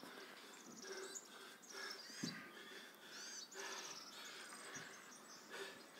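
Faint outdoor background of small birds chirping in short, high, repeated calls, with a single soft knock about two seconds in.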